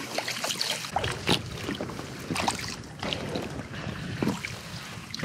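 Paddling an inflatable kayak: irregular paddle splashes and water lapping against the hull over a steady wash of water noise.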